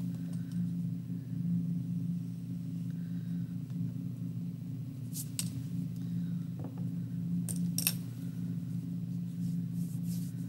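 A steady low hum, with a few short light clicks and taps in the middle as a pencil is laid down on the tabletop.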